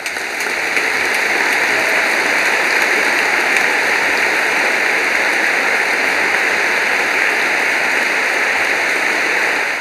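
A large audience applauding, swelling within the first second and then holding steady as a dense, even clatter of clapping.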